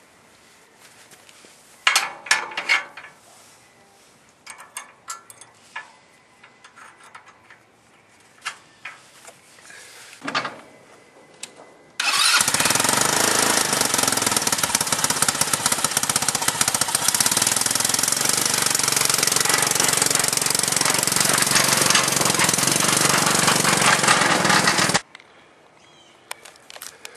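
Scattered metal clicks and knocks as a trailer coupler is worked onto a hitch ball. Then the mini monster truck's engine runs loud and close, a fast even chatter that starts suddenly about twelve seconds in and cuts off about thirteen seconds later.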